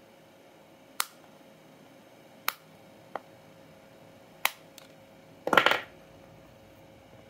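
Diagonal cutting pliers snipping plastic from the centre bore of a fan blade's hub, four sharp snaps spread over several seconds, then a short, louder clatter near the end.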